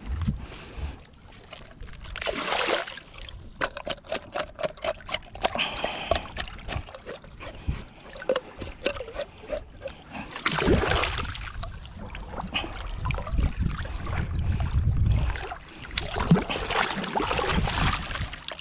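Water splashing and trickling as a freshly caught kahawai is gutted and rinsed. In the middle there is a run of quick sharp clicks, three or four a second.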